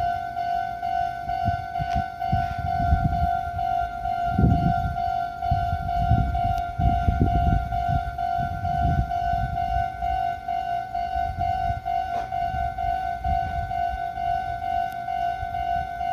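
Japanese level crossing alarm ringing in a steady, fast repeating electronic ding, while a Meitetsu 5700 series electric train passes with a low rumble that swells and fades, heaviest about four to nine seconds in.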